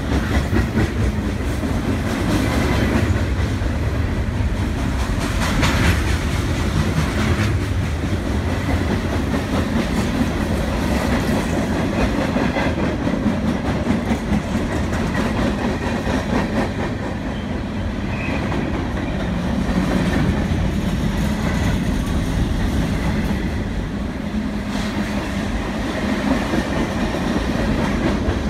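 Freight train cars rolling past at close range: a steady rumble of steel wheels on rail, with clicking as the wheels cross rail joints.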